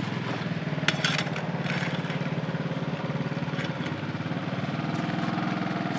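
An engine idling steadily with a fast, even pulse. A few light clicks come about a second in and again a little later.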